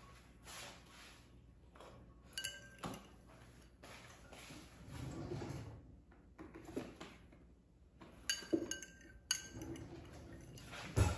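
Metal fork clinking and scraping against a ceramic bowl as beaten eggs are stirred, with several sharp clinks that ring briefly.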